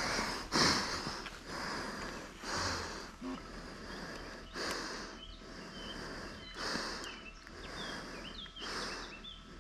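A person breathing close to the microphone, a breath in and out about every two seconds. Faint bird chirps come in about halfway through.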